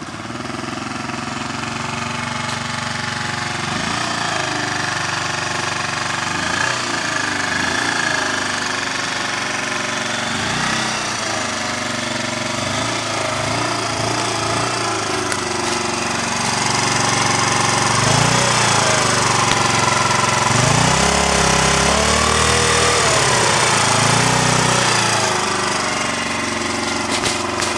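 SYM Mio 50 scooter's 50 cc engine running and being revved over and over with short throttle blips, the pitch climbing and falling each time. The revving gets louder and more frequent about halfway through.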